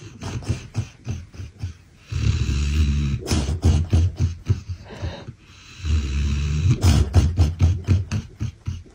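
A sleeping dog snoring loudly: two long snoring breaths, each a deep rumble followed by a fast rattle.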